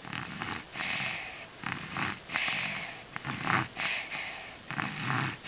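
A sleeping baby snoring, a steady run of quick breaths, each with a low rattly snore and a breathy hiss, about one a second.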